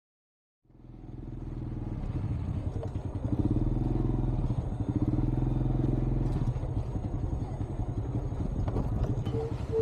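Small single-cylinder four-stroke engine of a Honda underbone motorcycle running as the bike is ridden along. It comes in after a moment of silence and rises in level, with two short beeps near the end.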